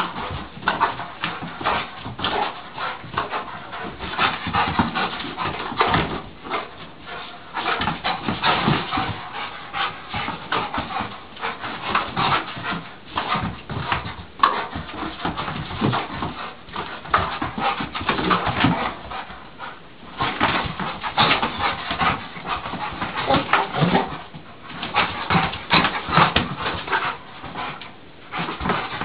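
Pit bull whimpering and panting excitedly as it plays at a balloon, amid a dense run of quick scuffs and taps that eases off briefly about two-thirds of the way through.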